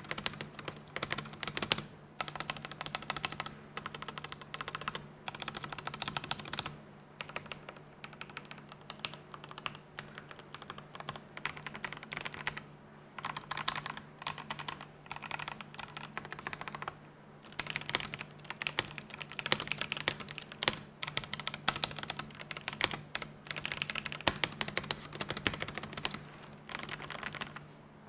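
Typing test on a stock Yunzii Keynovo IF98 gasket-mounted mechanical keyboard: rapid clacking keystrokes in bursts with short pauses between them.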